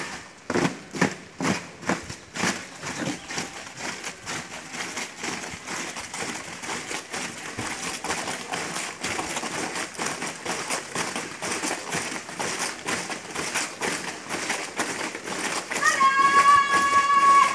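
Footfalls of a squad of cadets marching in step, many sharp scuffs and stamps of their shoes on the parade ground. Near the end a voice shouts one long drawn-out drill command.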